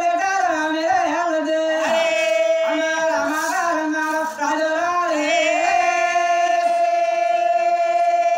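A voice singing a winding, ornamented melody line in a folk performance, settling about six seconds in on one long held note.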